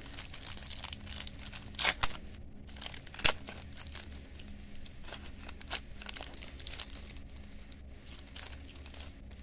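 The wrapper of an NBA Hoops basketball card pack being torn open and peeled apart by hand: continuous crinkling and tearing, with two sharper crackles about two seconds and three seconds in.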